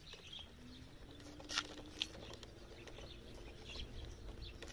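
Quiet rural outdoor ambience: faint scattered bird chirps, two light clicks about one and a half and two seconds in, and a faint steady distant hum.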